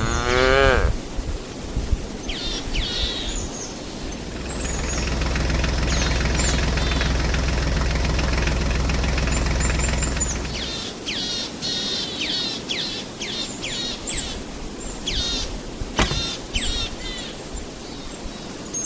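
Birds chirping again and again, with a short swooping sound at the very start. A steady low engine hum runs from about four and a half seconds in and stops at about eleven seconds, and a single sharp knock comes near the end.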